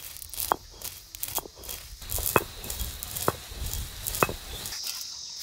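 Black peppercorns being crushed under a stone roller on a flat grinding stone (ammi kal): five sharp cracks, about one a second, as the roller is worked back and forth.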